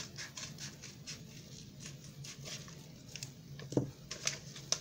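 A cardboard shipping box being opened by hand: scratching and rustling of cardboard and tape with scattered small clicks, and a louder knock a little before the end.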